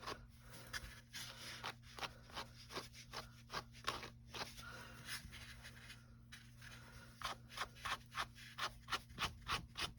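Wire pet brush raked repeatedly through acrylic yarn, a run of short scratchy strokes about three a second that stops for a couple of seconds midway and then resumes. The brushing combs the curl out of the yarn to fluff it into a gnome beard.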